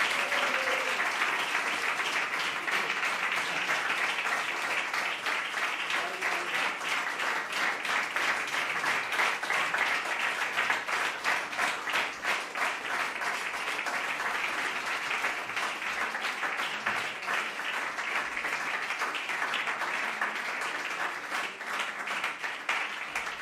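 Audience applauding steadily: a dense patter of many hands clapping, which thins and fades away near the end.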